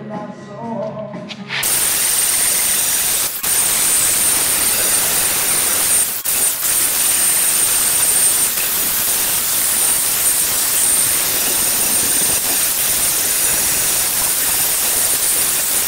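Grinder dressing the freshly plasma-cut edges of steel plates: a loud, steady grinding hiss with a high whine, starting about a second and a half in and briefly breaking twice as the disc comes off the metal.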